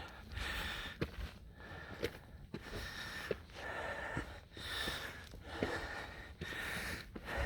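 A hiker breathing hard while climbing a steep rocky trail, with quick, heavy breaths about once a second. Footsteps make short knocks between the breaths.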